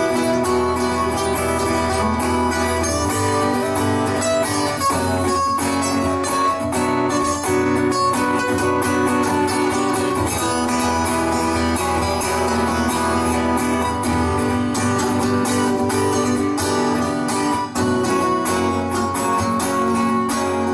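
Instrumental passage of a song: acoustic guitar strummed steadily, with no singing.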